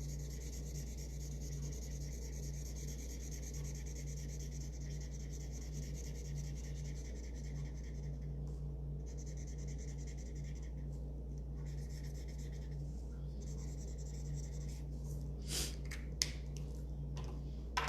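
Marker tip rubbing back and forth on paper as an area is coloured in, with a couple of short pauses. A few light clicks come near the end.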